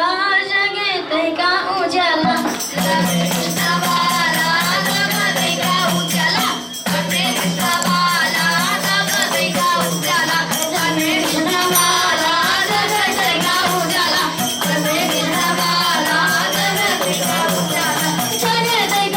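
Young students singing a devotional bhajan. A steady low drone and jingling tambourine-style percussion enter about two seconds in and accompany the singing.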